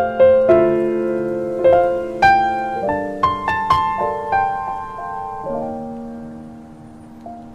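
Solo piano background music: gentle chords and single notes that ring and decay, thinning out and fading toward the end.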